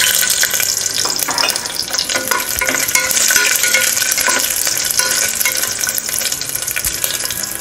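Thin coconut slices sizzling in hot coconut oil in a pressure cooker, with mustard seeds popping, while a spoon stirs and scrapes them around the bottom of the pan.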